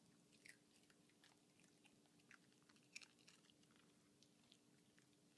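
Small dog faintly crunching and chewing a chip, a scatter of quiet irregular crunches, the loudest about three seconds in.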